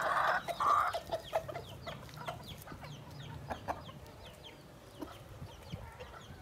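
Backyard chickens clucking and peeping. A loud call comes in the first second, then a scatter of short, high, falling peeps that grows quieter.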